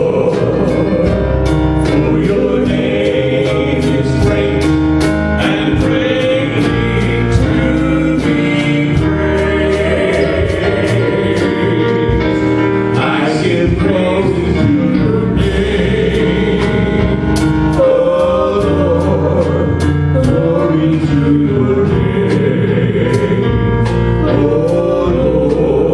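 Live gospel worship music: a band with a steady drum beat under singers, with a choir of voices joining in.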